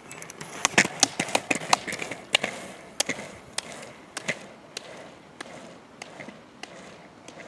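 Roller-skiing start: ski pole tips clicking sharply on asphalt as the skier double-poles away, over the roll of the roller-ski wheels. The clicks come fast and loud in the first couple of seconds, then grow fainter and further apart as the skier moves off.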